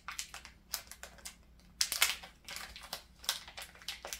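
A small zip-lock plastic pouch being opened and handled, its plastic crinkling and rustling in short, irregular bursts, loudest about two seconds in.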